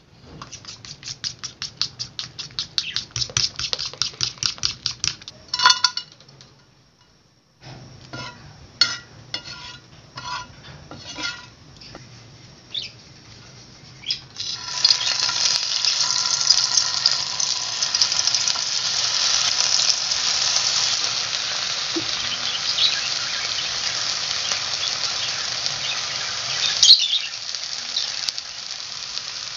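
A fork beating egg and cornflour batter in a ceramic plate, with rapid even strokes and then a sharp clink. After a pause come a few scattered clicks as tomato wedges are laid into a frying pan, and then a steady hiss of the tomatoes sizzling in hot oil.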